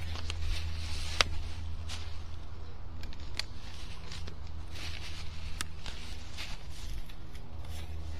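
Rustling in dry leaves and clothing with scattered sharp clicks and snaps as a downed whitetail buck is handled by its antlers, over a steady low rumble.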